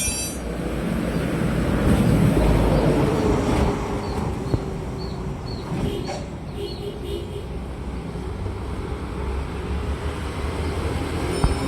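Road vehicle noise: a low rumbling that swells about two seconds in as a vehicle passes, then settles back. A few short, faint high chirps sound in the middle, and there is a sharp click near the end.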